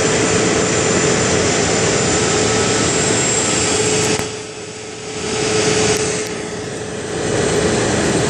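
Crane engine running steadily with a constant whine; the noise drops away briefly twice, about four seconds in and again between six and seven seconds.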